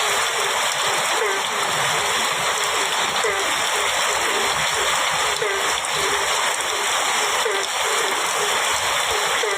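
Heavy rain falling steadily on a metal roof, a dense even hiss, with a small low blip repeating about twice a second.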